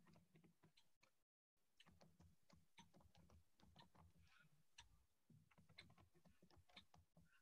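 Near silence on a video call: faint, rapid, irregular clicking over a low hum, with the audio cutting out completely for a moment about a second in.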